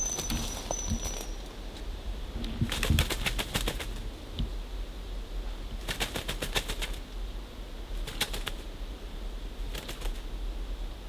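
Short bursts of rapid wing beats, four times, like a hazel grouse flapping. A thin, high, slightly falling whistle of the hazel grouse call kind sounds at the very start.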